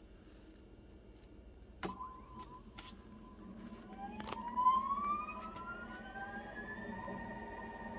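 The motor of a resin 3D-printing wash station starting its wash cycle in rubbing alcohol. A click about two seconds in, then a whine that rises in pitch over about three seconds as it spins up and settles into a steady tone.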